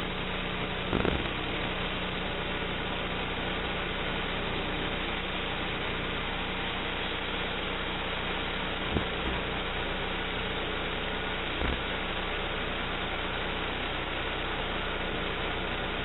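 Homemade band sawmill's 11-horsepower gas engine running steadily while the band blade cuts through a log, with a few brief knocks.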